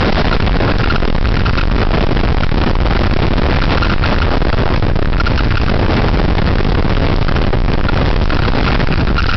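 Torrential rain and very high wind of a desert microburst thunderstorm: a dense, steady hiss over a heavy low rumble of wind buffeting the microphone.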